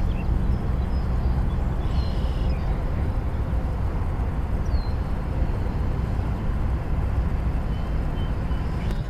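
Steady low outdoor rumble, with two faint short high chirps a few seconds apart.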